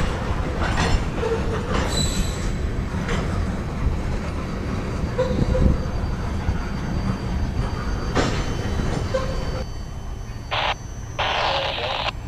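Loaded covered hopper cars of a freight grain train rolling past with a steady low rumble. The wheels knock over rail joints now and then and give a few brief squeals.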